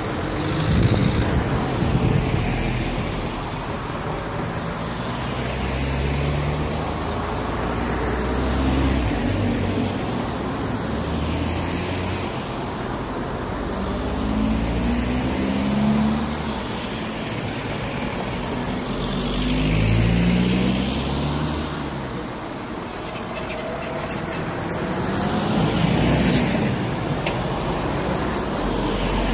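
Road traffic passing close by: a string of cars and lorries going by one after another, each engine swelling and fading as it passes.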